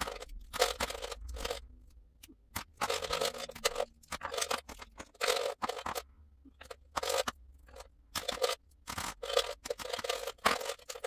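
Plastic pens and markers rattling and clacking as they are rummaged out of a fabric pouch and dropped into clear plastic bins, in a dozen or so short bursts.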